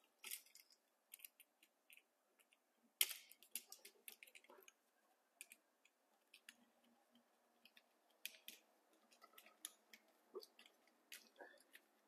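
Near silence broken by faint scattered clicks and light scrapes of a screwdriver and wires being worked at a receptacle's side terminal screws. The sharpest click is about three seconds in.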